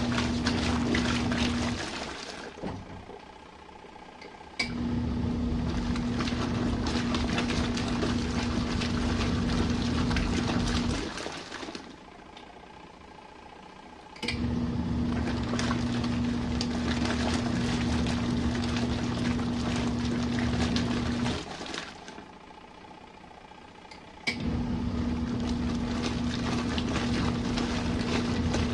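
Compact RV washing machine in its main wash: the motor hums and churns the water for six to seven seconds at a time, stops for two to three seconds, then starts again with a click, the usual stop-and-reverse cycle of the agitator.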